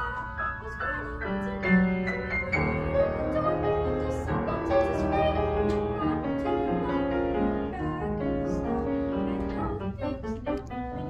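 A young girl singing a solo, accompanied by piano.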